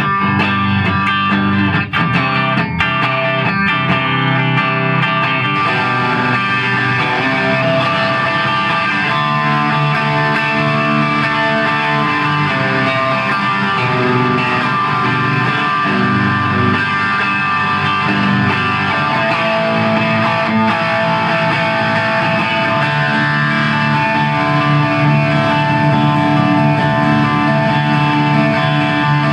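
Electric guitar (a Fender Telecaster) played through a sobbat ODB-1S overdrive pedal into a Marshall JCM2000 amp, with picked notes and chords ringing out. About five seconds in, the tone turns brighter and grittier, as the overdrive pedal is switched on.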